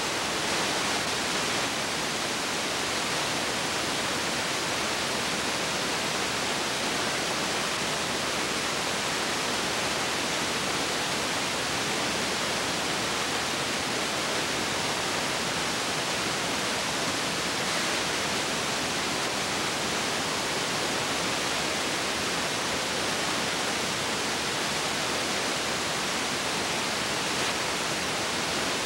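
Steady, even hiss with no other sound: noise on the soundtrack of a silent old home-movie film transfer.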